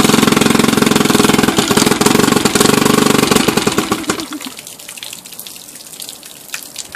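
Old Johnson two-stroke outboard motor running with a rapid, steady firing beat. Its firing then grows uneven and slows, and it stops about four seconds in, leaving only faint background noise with a few light clicks.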